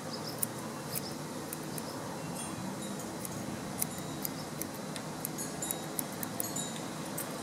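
Grooming scissors snipping dog hair: quick, irregular clicks over a steady background hiss.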